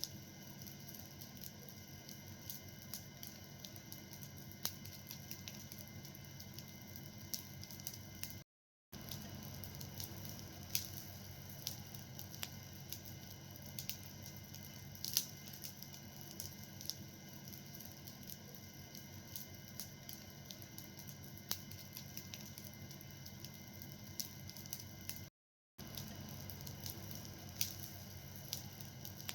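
Fire burning and crackling: irregular sharp pops and snaps over a steady low hiss. The sound cuts out briefly twice.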